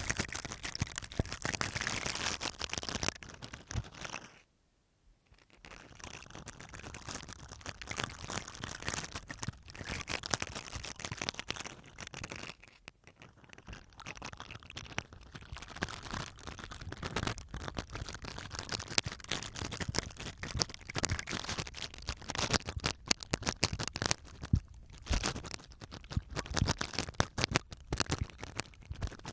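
Toothbrush bristles scratching and brushing over masking tape, a dense crackly scratching that stops briefly about four seconds in and then resumes.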